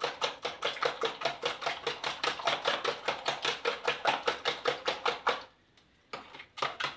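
Eggs and sugar being beaten by hand with a spoon in a plastic mixing bowl: a fast, even rhythm of spoon strokes clacking against the bowl, about five a second. The beating pauses for a moment near the end, then starts again.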